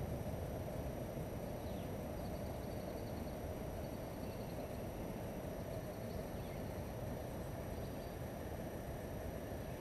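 Steady low rumble of wind buffeting the microphone, with faint high bird chirps now and then.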